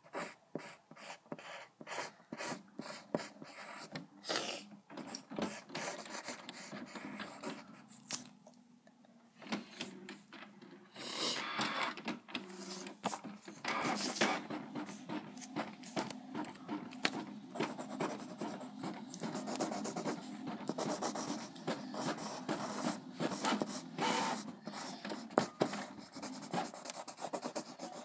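Pen scratching on paper in many quick, short strokes as a drawing is sketched. From about 11 seconds in, the scratching gets denser and louder.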